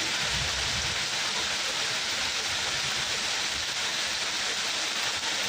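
Steady heavy rainfall, an even hiss of rain with no breaks.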